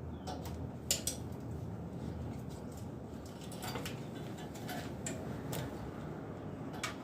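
A few light, sharp clicks and small clatters of hand work, scattered over a steady low background noise: cable ties and the wiring loom being handled and fastened.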